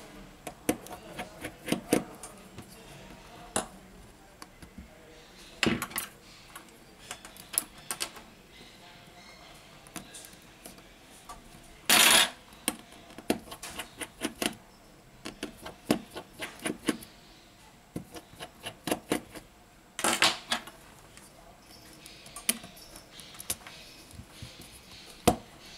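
Small metal tools and parts clicking and tapping irregularly against a smartphone's frame and the work mat as the phone is taken apart, with two louder half-second clatters about twelve and twenty seconds in.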